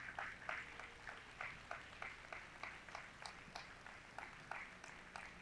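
Faint applause with separate, distinct claps at about three a second, dying away toward the end.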